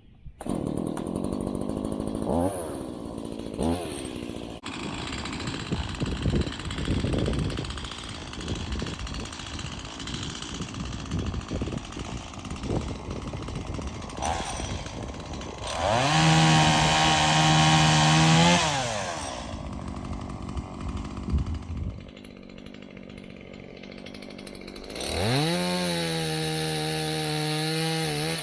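Stihl MS170 two-stroke chainsaw cutting a downed branch: two quick throttle blips near the start, a stretch of uneven running under load, a long full-throttle rev about halfway through, a drop to idle, then another rev up near the end.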